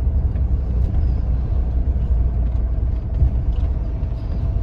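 Steady low engine and road rumble heard from inside an RV's cab as it drives.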